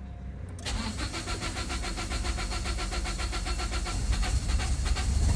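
Starter motor cranking a 2008 Toyota Verso's engine on its first start after a new timing chain, beginning about a second in: a rapid, even cranking rhythm that grows louder as it goes on. The engine is slow to fire because the fuel line had been disconnected and the fuel has to reach the engine again.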